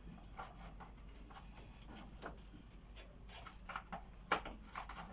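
Scattered light clicks and taps of hand work, with one sharper click about four seconds in.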